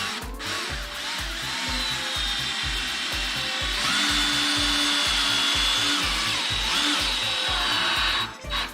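Cordless drill driving a screw into wood, running under load for several seconds with a steady motor whine, then stopping abruptly shortly before the end.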